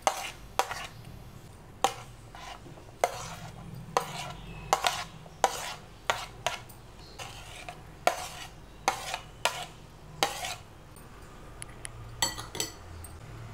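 Chopped vegetables tipped from a plate into a glass bowl, with irregular sharp clinks and taps of plate and utensil against the glass. Near the end a spoon clinks quickly in the bowl as the vegetables are stirred.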